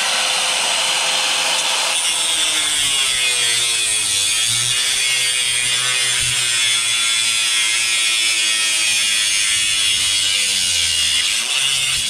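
Corded angle grinder with a cutting disc running continuously as it cuts through aluminum siding. Its pitch dips briefly about four seconds in and again near the end as the disc bogs under load.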